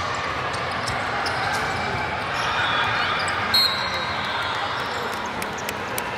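Volleyball hall din: many voices mixed with scattered sharp smacks of balls being hit and bouncing on the courts. A short whistle blast sounds about three and a half seconds in.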